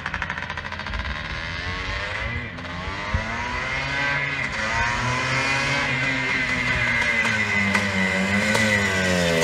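1981 Yamaha YZ465 two-stroke single-cylinder motocross engine revving hard, its pitch climbing and dropping several times as it shifts, growing louder as the bike approaches.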